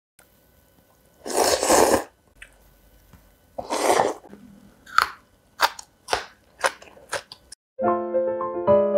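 Close-up eating sounds: two longer, noisy bites, then a run of about six sharp, crisp crunches. Piano music begins near the end.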